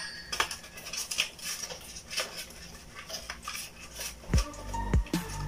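Light metallic clinks, clicks and rattles of a new cooling sensor and its wiring being fitted by hand against a water dispenser's stainless-steel cold-water tank. A few low thumps come in near the end.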